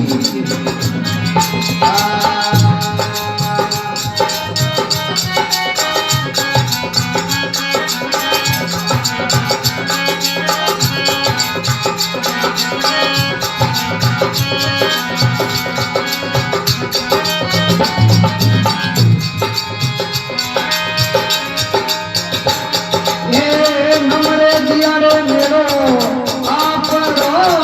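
Marwari devotional folk song music, mostly instrumental, with a melody over a steady percussion beat and a jingling rattle.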